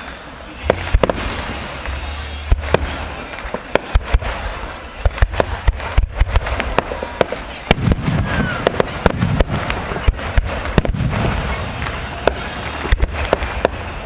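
Fireworks display going off: many sharp bangs and crackles in quick, irregular succession, with deeper rumbling booms among them.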